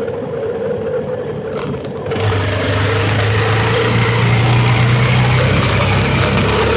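Motorized bicycle's small engine running as the bike rides along. It gets louder about two seconds in and then holds a steady hum.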